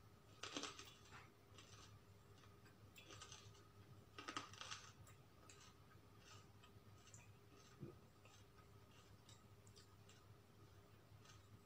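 Near silence broken by a few faint crunches of chewing, the clearest about half a second in and again about four seconds in, with scattered tiny clicks between.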